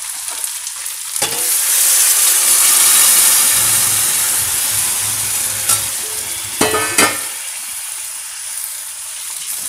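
Water poured into a hot iron kadhai of ghee-fried rice and sugar sizzles sharply as it hits the hot ghee. The sizzle starts suddenly about a second in, is loudest soon after, then slowly fades as the pan cools.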